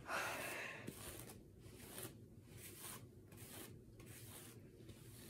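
Hairbrush being pulled through long hair: a faint rasping swish about every half second, the first stroke the loudest.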